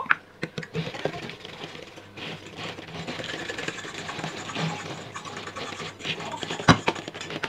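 Eggs being beaten by hand into a banana-and-sugar cake mixture in a bowl: a fast, steady clatter of the utensil against the bowl. There are a few sharp knocks near the start and one loud knock near the end.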